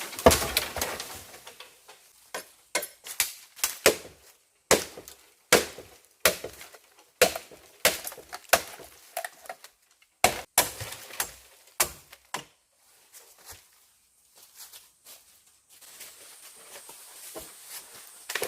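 Chopping blows from a blade: a run of sharp, separate strikes, roughly one or two a second, that stop about twelve seconds in.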